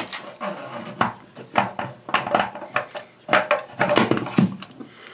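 Irregular knocks, clicks and rattles of a chrome Moen Adler faucet and its braided supply lines being handled and set down onto the sink deck, hard fittings tapping the sink; the knocks come thickest about three to four seconds in.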